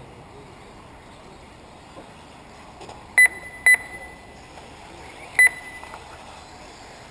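Three short, high electronic beeps from the race timing system's lap counter: two about half a second apart, then a third about two seconds later. They sound over a steady background noise.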